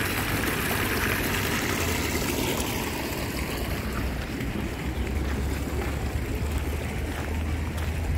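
Steady rush of running water from a garden waterfall or stream, its hiss thinning about halfway through, over a low rumble of wind on the microphone.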